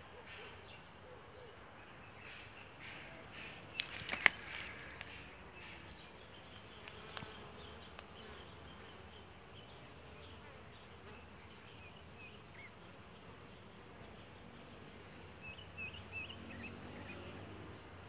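Honeybees humming steadily at their hive, faint, with a couple of sharp clicks about four seconds in.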